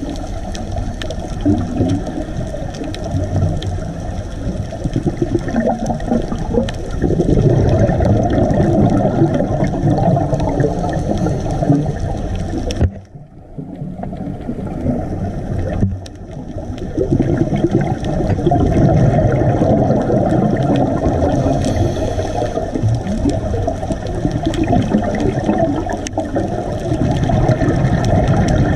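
Underwater bubbling and gurgling from a scuba diver's exhaled air, in long rough stretches with a short quieter pause about halfway through.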